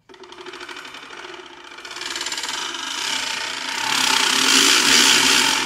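Kolberg crank ratchet with a wooden resonance box, cranked steadily so its wooden tongues rattle fast against the toothed wheel. The volume control is opened from soft to loud, and the rattle swells to its loudest about four seconds in.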